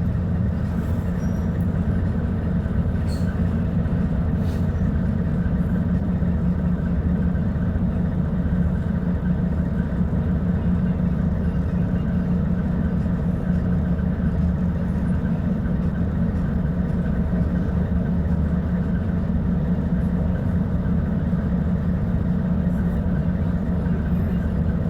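Diesel engine of a Volvo B290RLE bus running steadily at an even pitch, with no revving.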